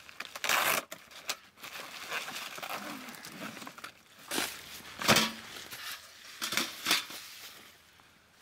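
Plastic packaging crinkling and rustling as it is pulled off and handled, with a few sharp knocks of the stainless-steel stove parts, the loudest about five seconds in and another near seven seconds.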